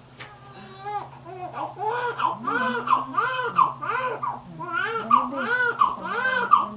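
Newborn baby crying soon after delivery: short, rhythmic wails about two a second, starting weakly about a second in and growing louder.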